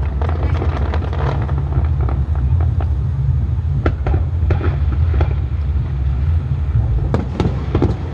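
Fireworks going off: many short sharp pops and crackles over a steady, heavy low rumble.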